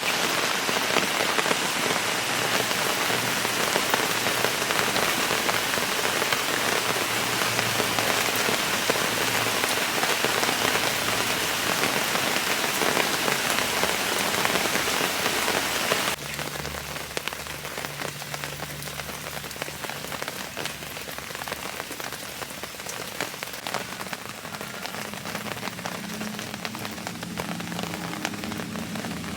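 Steady, dense rain falling and hitting surfaces. About halfway through it cuts abruptly to a quieter, thinner patter of rain with a faint low hum beneath.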